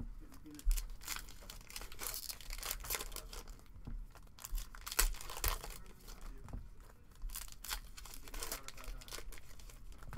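Foil trading-card pack wrapper crinkling and tearing as it is ripped open and the cards are slid out, in a run of irregular rustles and crackles.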